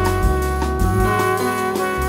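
Live jazz band: a trumpet plays held notes over an electric bass line and drums.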